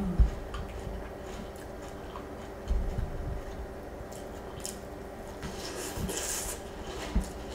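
A wooden spoon scoops Trix cereal with marshmallows through milk in a glass bowl, with a few soft knocks and scrapes. Then comes a bite and the crackly crunch of the cereal being chewed, loudest around six seconds in.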